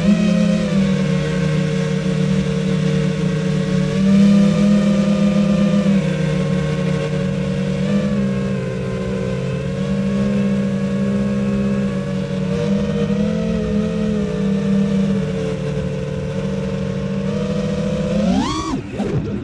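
FPV quadcopter's electric motors and 5.1-inch propellers on a 4S battery, a steady multi-tone whine heard from the onboard camera, shifting up and down in pitch with throttle. Near the end it swoops up and back down sharply twice as the throttle is punched and cut.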